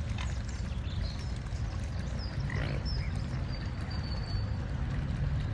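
Riverside ambience: a steady low rumble with a few short, faint high bird chirps and whistles.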